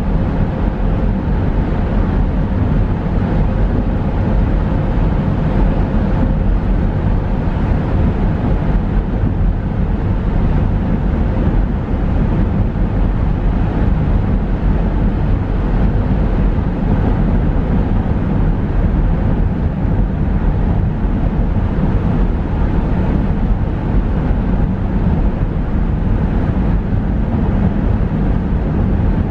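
Steady road noise of a car driving at speed through a highway tunnel, heard from inside the cabin: a continuous low rumble of tyres and engine that does not change.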